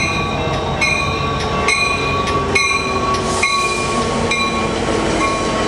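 Commuter train led by an EMD F59PHI diesel locomotive pulling in and passing close with its bilevel cars, its engine rumbling and a steady high squeal from the wheels. Over it, a crossing warning bell dings a little faster than once a second.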